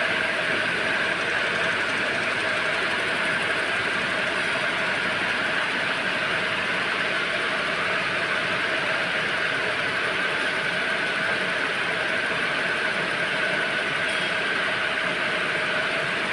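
Needle loom webbing machines running at high speed, a steady dense mechanical din with a constant whine in it.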